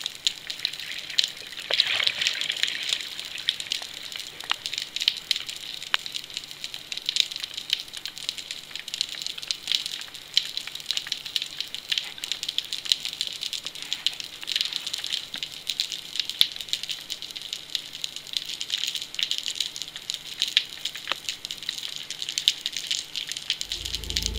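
Underwater ambience: a steady, dense crackle of tiny clicks with a faint low hum. Music comes in near the end.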